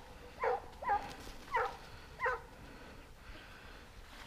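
A hunting dog yelping: four short yelps, each falling in pitch, about two-thirds of a second apart in the first half.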